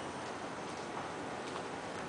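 Steady ambient background hiss with a couple of faint ticks.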